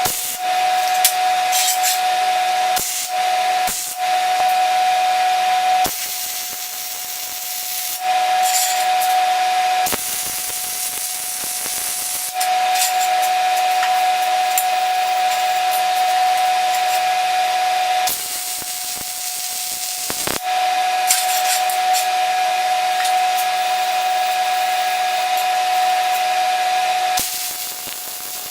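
Welding on a steel-plate vise bracket: a steady hiss with crackle and a constant whine, in several runs of a few seconds each with short breaks between them.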